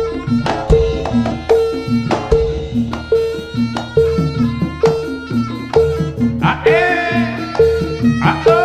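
Jaranan accompaniment music: a gamelan-style ensemble with drums and a pitched gong struck on a steady beat about every half second, and a shrill reed melody with bending notes coming in about two-thirds of the way through.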